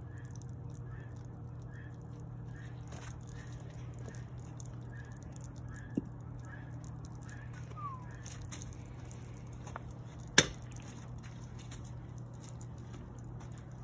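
Metal crucible tongs knocking against the crucible during a molten-copper pour: a light knock about six seconds in and a sharp, much louder clack about ten seconds in, over a steady low hum from the propane melting furnace's burner.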